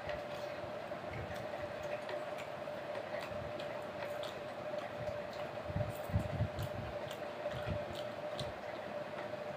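Close-up eating sounds: chewing, with small scattered clicks as chicken is pulled off a wooden skewer and picked from a ceramic plate, over a steady background hum. The chewing is heaviest a little past the middle.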